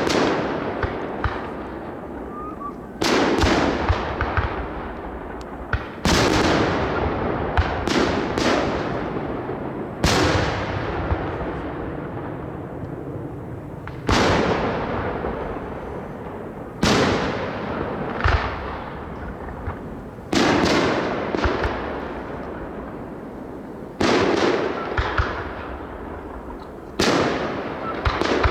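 Aerial firework shells bursting in a display: sharp loud bangs every two to four seconds, sometimes two in quick succession, each followed by a long rolling echo that fades away.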